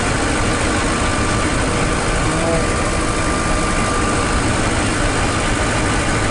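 Steady engine and road noise inside the cab of a camper van driving along at road speed.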